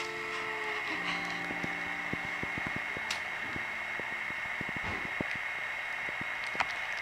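A few held musical notes fade out about a second in, leaving a steady background hum with a constant high whine and a few faint ticks.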